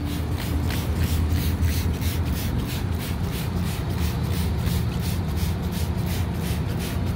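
Hand-held trigger spray bottle squirting sanitizer onto an AC condenser coil in rapid repeated pumps, several short hisses a second, over a steady low hum.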